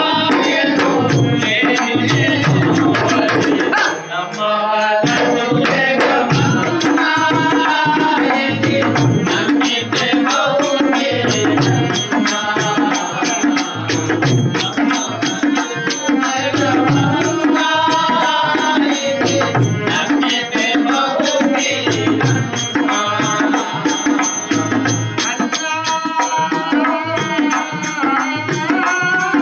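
Telugu devotional tattvam song: a singer with steady tabla accompaniment, the music dipping briefly about four seconds in.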